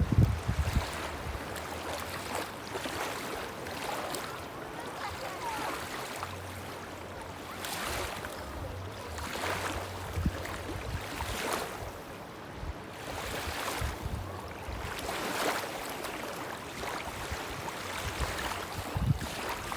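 Small waves washing onto a beach one after another, in repeated surges of surf noise, with a few low gusts of wind on the microphone near the start and again near the end.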